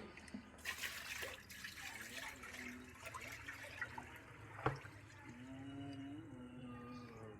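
Faint trickling and dripping water, with a few scattered small clicks and one sharper click a little after the middle.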